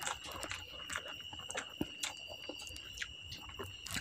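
Close-up mouth sounds of a person eating rice and drumstick (moringa pod) curry by hand: irregular wet smacks, lip clicks and chewing, over a steady high-pitched whine.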